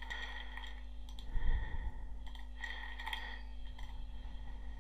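Faint computer keyboard typing and mouse clicks, a few scattered short clicks over a steady low hum, with a soft low thump about a second and a half in.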